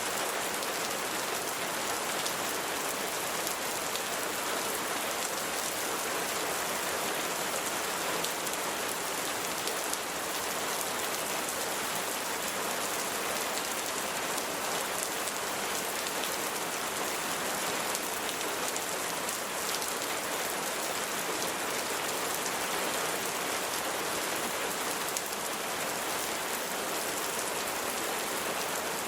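Steady rain falling on a surface: an even hiss of many small drops with fine patter, unchanging throughout.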